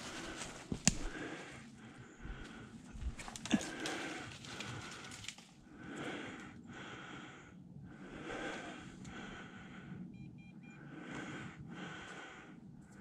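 Heavy, rhythmic breathing close to the microphone while walking through dry leaf litter and brush. Two sharp twig snaps come about one second and three and a half seconds in.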